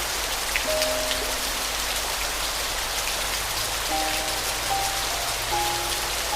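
Steady rainfall hiss with scattered drips, under a slow, soft piano playing a few sustained notes at a time.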